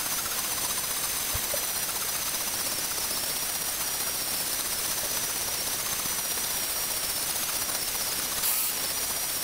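A T8 Mini CNC's spindle cuts the copper layer of a PCB blank with a fine V-bit engraver, engraving isolation traces. It makes a steady high whine over an even hiss, with a brief louder moment near the end.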